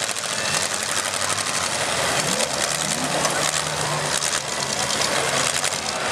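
Demolition derby car engines running hard at high revs, a fast rattling exhaust note, with the pitch rising a few times about two to three seconds in as the drivers rev while pushing against each other.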